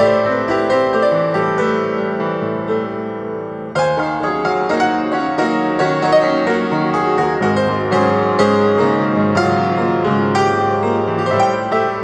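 Instrumental background music on piano, a steady flow of notes, with a slight lull and a fresh run of notes about four seconds in.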